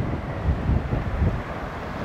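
Gusty crosswind buffeting the microphone in low, uneven thumps. Under it runs the rumble of a Boeing 767's jet engines on final approach.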